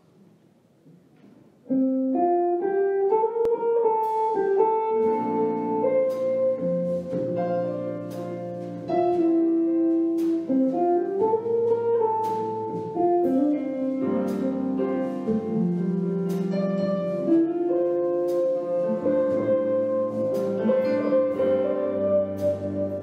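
Jazz trio of hollow-body archtop electric guitar, upright bass and drum kit playing an instrumental. After a moment of near silence the guitar starts with chords. The bass comes in about five seconds later, and light cymbal taps run alongside.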